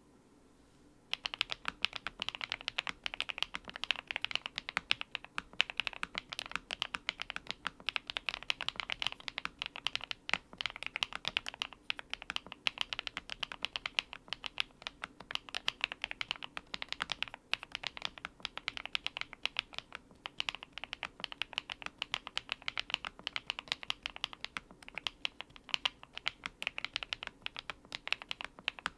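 Fast continuous typing on a GMK87 mechanical keyboard with lubed HMX Blue Topaz linear switches and coffee translucent Cherry-profile keycaps, a dense stream of key clacks starting about a second in.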